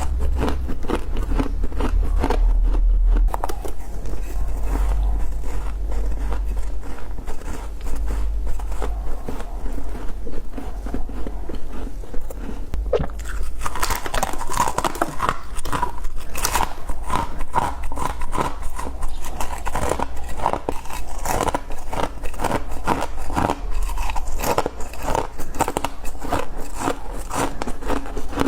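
Close-up crunching and chewing of freezer frost: dense, irregular crackly bites, growing louder and thicker about halfway through.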